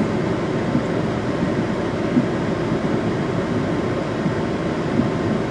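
Steady engine and road noise inside a running van's cabin.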